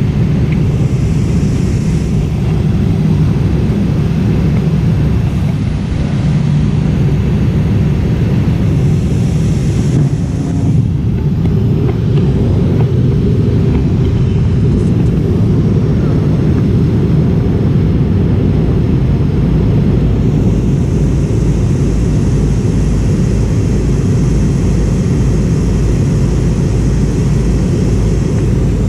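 Steady cabin noise inside a McDonnell Douglas MD-88 airliner in flight: a low roar of airflow and the rear-mounted Pratt & Whitney JT8D turbofan engines, with a fainter high hiss that comes and goes.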